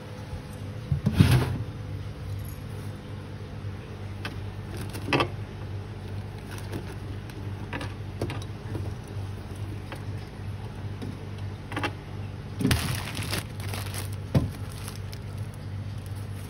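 Clatter and knocks of a refrigerator's plastic crisper drawer and the vegetables in it being handled, loudest about a second in and again in a short run of knocks near the end, over a steady low hum.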